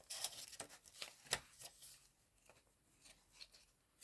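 Paper rustling and light tapping as the pages and cards of a handmade paper journal are handled, with one sharp tap about a second and a half in; much quieter in the second half.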